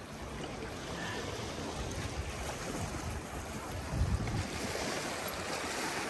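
Steady rush of moving water, with wind buffeting the microphone in low rumbles that are strongest about four seconds in.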